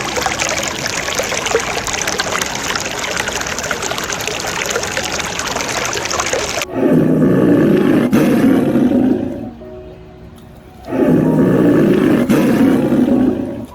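A loud, steady rushing noise like running water cuts off abruptly. Then come two loud, rough, low animal calls of about two and a half seconds each, with a short pause between them.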